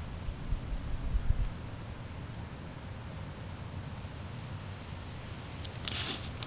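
Garden ambience: a steady high-pitched whine throughout, with low rumbles and knocks in the first second and a half, and a few short raspy bursts near the end.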